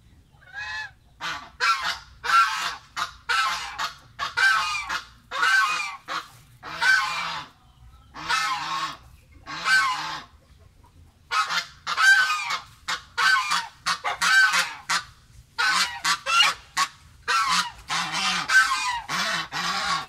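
Domestic goose honking over and over, harsh calls about two a second in runs broken by short pauses, starting about a second in.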